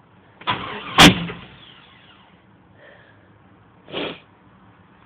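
1989 Jeep Grand Wagoneer's AMC 360 V8 with a two-barrel carburetor being cold-started in freezing weather: a short crank that catches about a second in with a sharp bang, then fades to a low steady hum. A brief burst of sound comes near the end.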